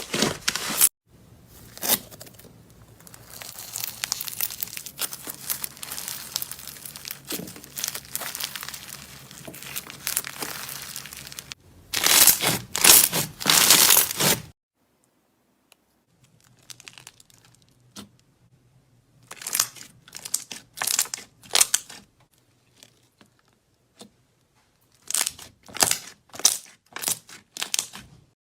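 Slime being squeezed and stretched by hand, making crackling, sticky popping sounds: a long run of fine crackles, a louder burst a little before halfway, a short pause, then several short clusters of pops toward the end.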